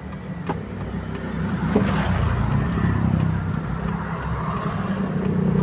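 A road vehicle's engine running close by, growing louder over the first couple of seconds and then holding steady.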